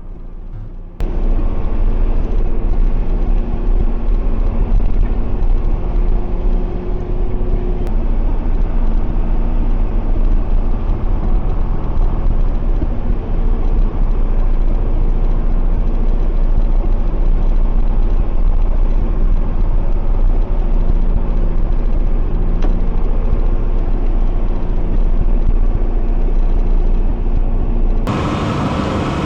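Tractor engine running steadily with a deep rumble. It starts abruptly about a second in and cuts off near the end.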